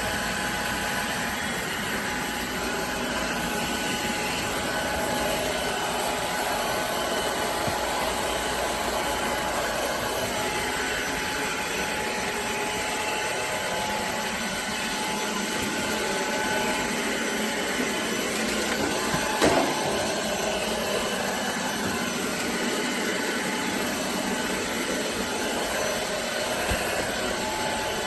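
drepre K7 Pro cordless stick vacuum running steadily, its motor giving an even whine over the rush of air, with one sharp knock about two-thirds of the way through.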